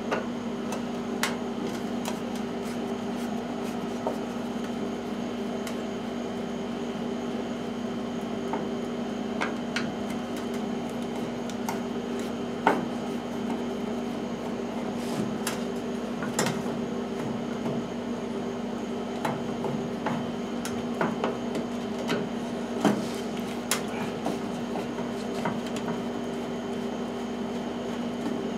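A steady hum in a small workshop, with scattered light clicks and taps as tools and mower parts are handled; a sharper knock comes about a third and again about halfway through.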